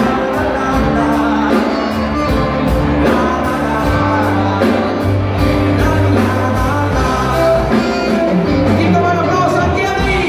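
Live rock-and-roll band playing with saxophone, drums and piano over a steady beat, with a singing voice.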